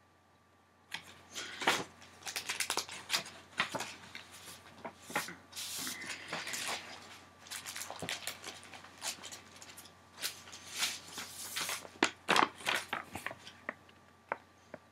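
Sheets of paper rustling and crackling as they are handled and shuffled, a busy run of crinkling with sharp crackles that starts about a second in and dies away near the end.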